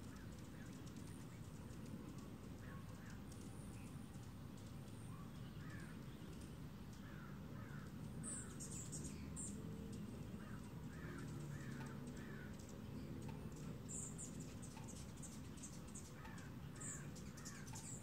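Hummingbirds at a nectar feeder: short, high squeaky chips now and then, most clearly about halfway through and again near the end, over a low steady hum. Short chirps come in runs of three or four every few seconds.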